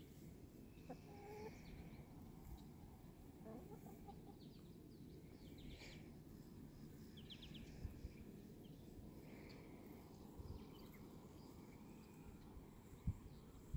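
Chickens clucking faintly as they forage, with a few scattered short calls.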